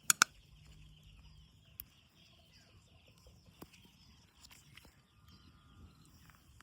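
Two sharp clicks right at the start, then faint rural outdoor ambience with a steady high hum and soft animal sounds.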